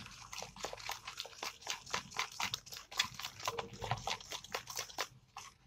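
A metal spoon stirring thick gram-flour batter in a plastic bowl, making rapid, irregular wet clicks: batter being mixed to a smooth bajji consistency.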